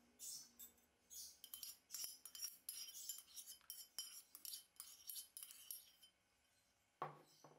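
A metal spoon scraping chopped green onion out of a small ceramic dish into a stainless-steel bowl: a quick, irregular run of scrapes and light clinks. Near the end comes a single duller knock.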